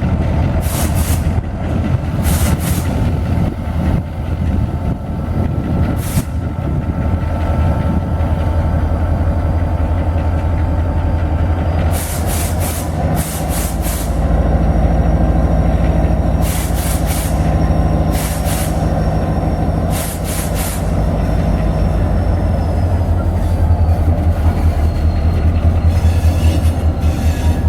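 Freight train rolling through on the rails: a heavy low rumble, with the wheels clacking over rail joints in repeated clusters. A diesel locomotive's engine drone comes in about halfway through and fades near the end.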